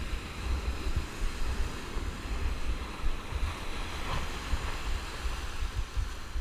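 Ocean surf breaking and washing up a sandy beach, a steady hiss of foaming water, with wind buffeting the microphone in uneven low gusts.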